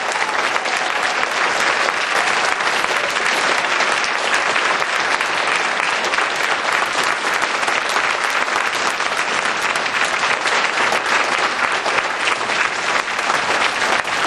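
Audience applauding, a dense and steady clapping that goes on without a break.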